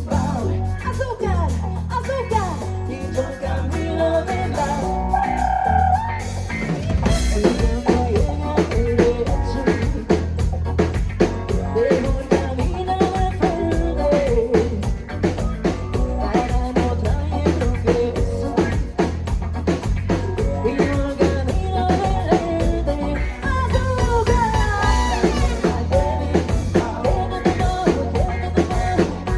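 A Latin pop band playing: singing over a drum kit with snare and bass drum, and a strong bass line. The beat becomes denser and fuller about seven seconds in.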